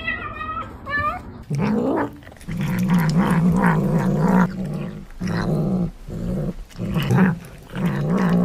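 Kitten growling while it eats: a low, wavering growl in several stretches of a second or two with short breaks, after a few short high chirping calls at the start.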